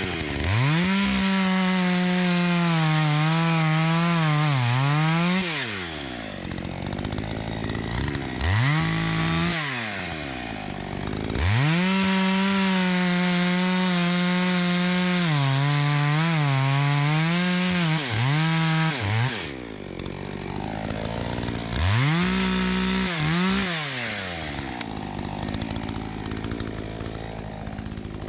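Two-stroke chainsaw revved to full throttle and cutting wood four times, about five seconds, then briefly, then about seven seconds, then about two seconds near the end. Its pitch dips as the chain bites and falls back to idle between cuts.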